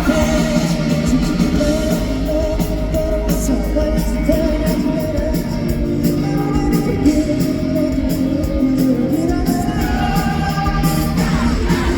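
Live pop-rock band performance: a singer's vocal over electric guitars, bass and drums with a steady beat, in a large hall.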